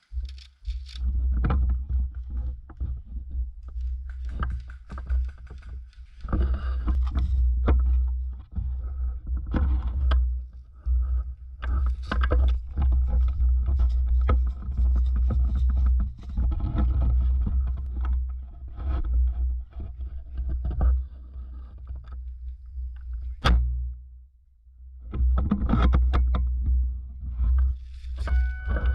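Heavy deep rumble on the microphone with scattered knocks and clicks, broken by a short lull, with one sharp crack about twenty-three seconds in.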